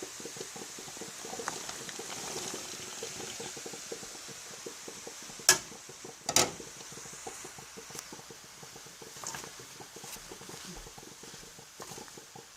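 Beans, garlic and onions sizzling and simmering in a frying pan as they are stirred, with two sharp knocks about halfway through.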